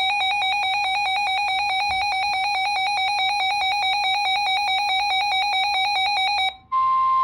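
A weather radio's built-in alert alarm sounding a loud, rapidly pulsing electronic beep as a warning comes in. It cuts off near the end, and after a brief break a steady single-pitched tone begins: the NOAA Weather Radio warning alarm tone.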